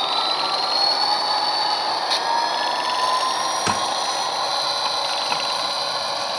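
HO-scale Santa Fe SD40 model diesel locomotive running slowly along the track, with a steady whine that drifts up and down in pitch. A single sharp click comes a little past halfway.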